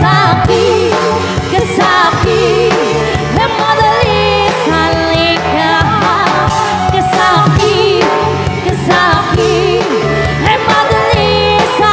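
Live band playing a pop song, with singing over guitar, bass and drum kit.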